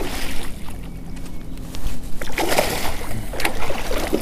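A hooked bass thrashing at the surface beside a kayak, splashing water in several noisy bursts.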